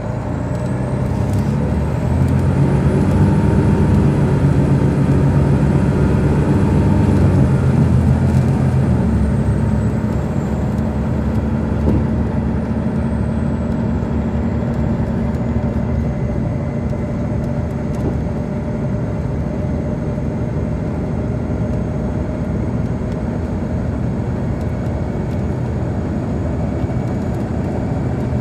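Detroit Diesel Series 60 diesel engine of an MCI D4000 coach pulling hard, heard from inside the bus, with a high whine that rises in the first few seconds. From about nine seconds in, the engine eases off and the whine slowly falls as the bus runs on more steadily.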